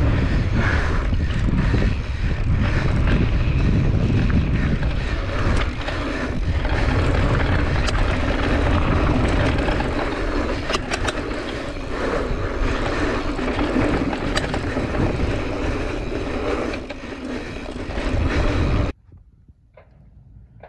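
Wind buffeting a handlebar-mounted GoPro's microphone, mixed with a mountain bike's tyres rumbling over a rough dirt trail and a few sharp clicks of the bike rattling. It cuts off suddenly near the end.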